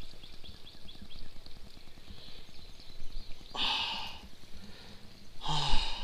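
Two sharp, breathy exhales from a man, about two seconds apart, with faint high chirping in the first second.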